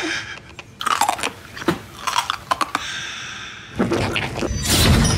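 Horror trailer sound effects: a string of sharp crunching hits, a held tone about three seconds in, then a loud swell near the end.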